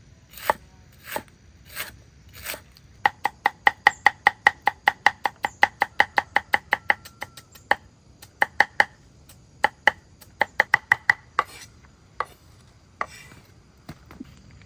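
Knife chopping on a cutting board. A few spaced strikes lead into a fast run of about five chops a second, which then breaks into shorter runs and single chops.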